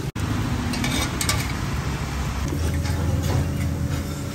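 A steady low rumble, with a few light clicks about a second in.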